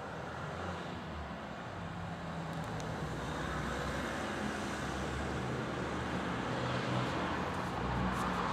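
Giant-scale RC plane's Titan 62 cc gasoline engine running steadily at low speed, slowly getting a little louder.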